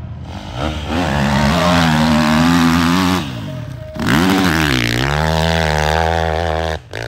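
Four-stroke dirt bike engine revving hard under load as it climbs a sand hill, held at high revs. It dips briefly about three seconds in, rises sharply again, and cuts off suddenly near the end.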